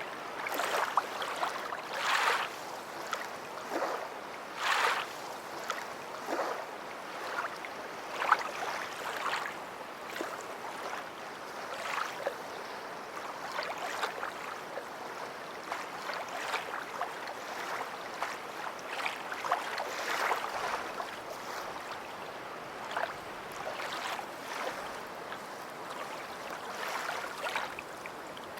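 Small waves lapping and splashing at the water's edge: a steady wash broken by many short, irregular splashes, a few stronger ones in the first ten seconds.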